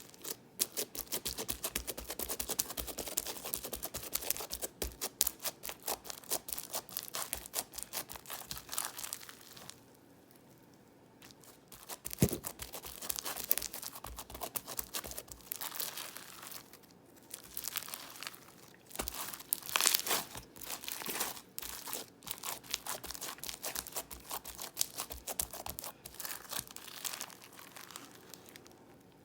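Crunchy floam slime being squeezed and pressed by hand: dense runs of fine crackling and popping as the foam beads crunch and trapped air bubbles burst, broken by two short pauses.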